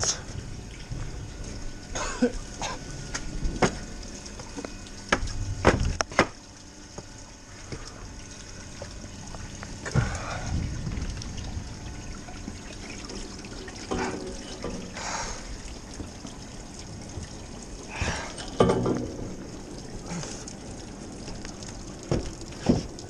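Water trickling and gurgling in a clogged flat-roof drain as it is being unblocked, with irregular splashes and knocks every few seconds.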